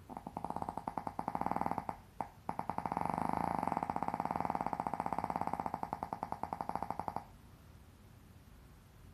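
Snoring: a fast fluttering rattle through two long breaths, the first about two seconds and the second about five, followed by a few seconds of quiet breathing.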